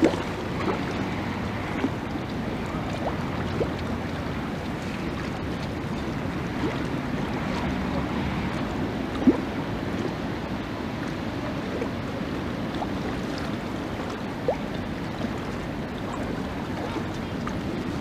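Steady rushing of strong wind on the microphone, with a few light clicks, the sharpest about nine seconds in.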